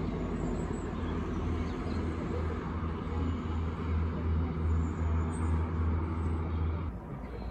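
Wind buffeting the microphone in an uneven low rumble, which drops away abruptly near the end.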